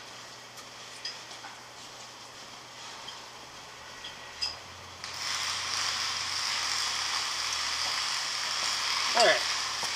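Faint clicks and handling noise of hands working a three-strand rope grommet around metal fittings. About five seconds in, a steady hiss starts abruptly and carries on.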